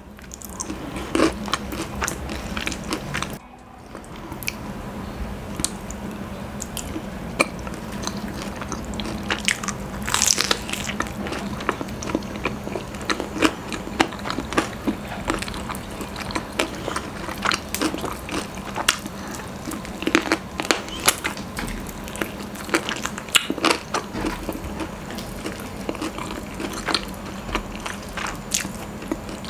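Close-miked eating: chewing a mouthful of honeycomb, then biting and chewing crispy-coated Popeyes fried chicken, with many small crunches and clicks throughout.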